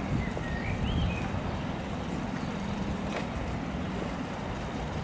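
Outdoor ambience over flood water: a steady low rumble with a faint engine-like hum, and a few short bird chirps in the first second.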